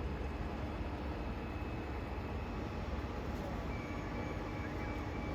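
Bus engine running with a steady low rumble; faint steady tones join in near the end.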